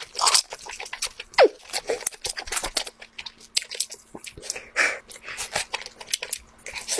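Close-miked eating of lobster: crunchy cracking and tearing of shell and meat with wet chewing, a dense run of short clicks and crackles. A brief falling squeak sounds about one and a half seconds in.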